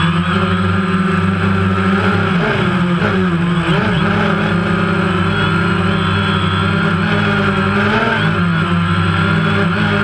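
DJI Phantom quadcopter's rotors buzzing steadily, the pitch wavering a little as the drone flies.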